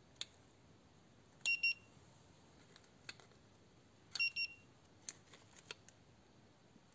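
Handheld infrared thermometer beeping twice in quick succession as each temperature reading is taken, two such double beeps a few seconds apart, with a few faint clicks in between.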